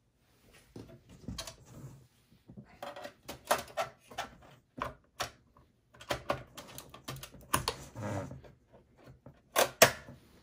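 Irregular clicks, taps and rattles of plastic and sheet metal as a video card is pressed into its slot and its bracket fitted in a small-form-factor PC chassis, with two loud sharp clicks close together near the end.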